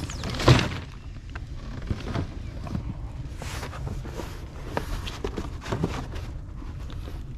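Cardboard box rustling and scraping as it is carried and pushed into a burning 55-gallon drum burn barrel, in a few short bursts; the loudest is about half a second in. Footsteps crunch on gravel, and wind rumbles steadily on the microphone.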